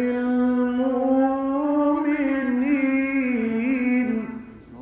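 A male Quran reciter holding one long melodic note in the mujawwad style, with ornamental wavering turns in its second half, trailing off about four seconds in.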